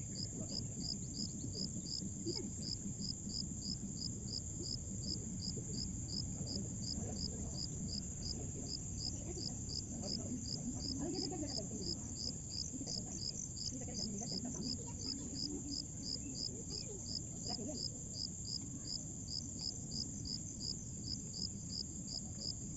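Insects, likely crickets, calling steadily: one continuous high-pitched buzz together with a pulsing chirp about two to three times a second, over a low background rumble.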